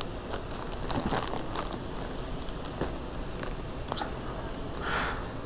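A large plastic pet-food bag and papers crinkling and rustling as they are handled, with scattered small clicks. There is a brief louder rustle about five seconds in.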